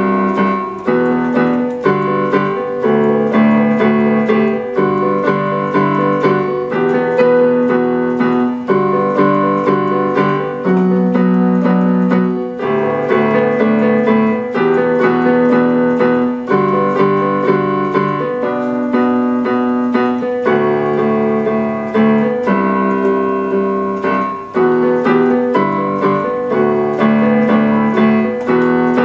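Electronic keyboard played by hand with an electric-piano sound: a run of sustained chords, each held for a second or two before the next.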